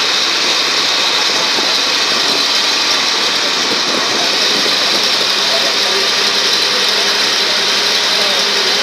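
A ferry's engine running steadily, heard from on board on the passenger deck, with a constant noise that neither rises nor falls.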